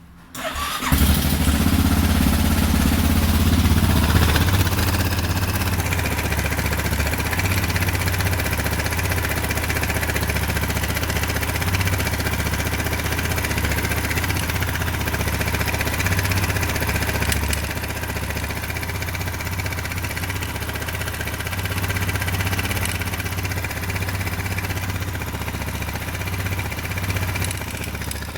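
Husqvarna 610 motorcycle's single-cylinder four-stroke engine running at a steady idle, with a ticking noise that is the fault the owner is asking about.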